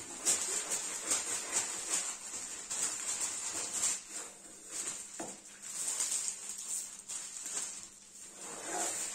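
A diamond-painting canvas sheet rustling and crinkling as it is handled and smoothed flat, an irregular run of papery crackles that swells and fades.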